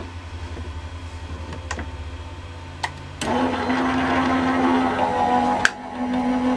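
Couture Creations Go Power and Emboss electric die-cutting machine. A few clicks as the plate is fed in, then about three seconds in its motor starts running steadily, drawing the plate through the rollers to foil and die cut the cardstock. One sharp knock near the end.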